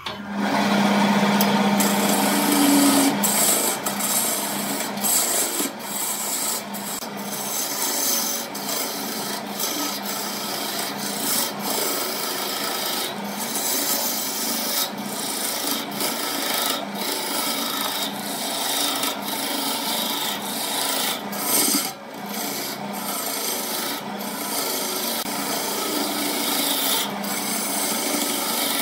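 Wood lathe switched on, then a turning chisel cutting into the spinning wood blank: a continuous rough scraping as shavings tear off, with the lathe motor humming underneath.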